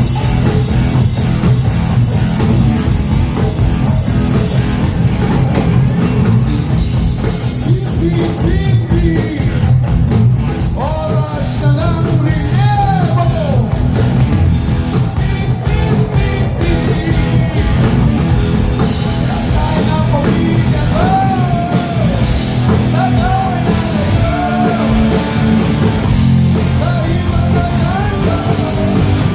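Rock band playing live, with electric guitar, bass and drums. A singer comes in over the band about eight seconds in and keeps singing.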